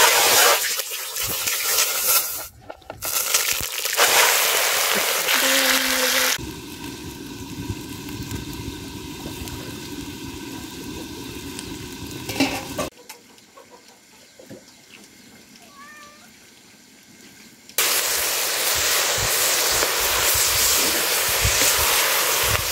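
Chicken pieces sizzling and frying in hot oil in an old iron karahi over a wood fire. The sizzling drops away for a quieter stretch in the middle, then comes back loudly about eighteen seconds in.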